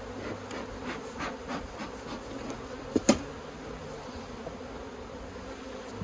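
Honeybees buzzing in a steady hum around an open hive. A few light taps and two sharp knocks about three seconds in come from the hive woodwork being handled.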